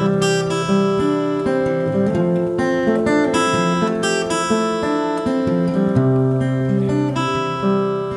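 Background music played on acoustic guitar, plucked and strummed notes in a steady flow.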